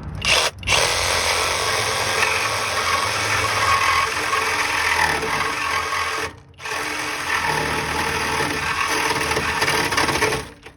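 Power saw cutting through a steel exhaust pipe by the muffler, a pipe that is pinched near the top. It runs in long stretches, stopping briefly about half a second in and again just past the middle.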